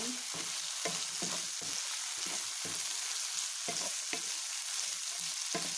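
Chicken meatballs and vegetables sizzling in hot oil in a pan as they are stir-fried: a steady sizzle with irregular scraping and stirring strokes against the pan.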